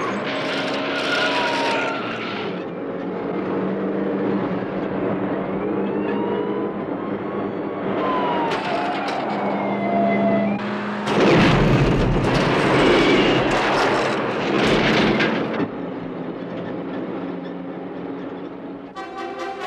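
Film soundtrack of a heavy military truck's engine running steadily, with short tyre squeals. About halfway through come several loud crashes and metal scraping as the truck and a police car collide.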